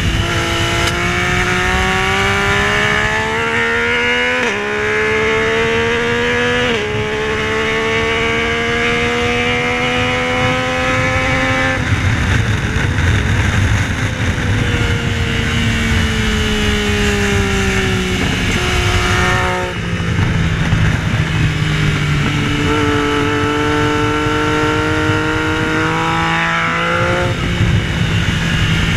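Yamaha Tracer 900's inline three-cylinder engine at full throttle, its pitch climbing through the gears with quick upshifts, then shutting off and falling through downshifts before accelerating hard again, over steady wind and road noise.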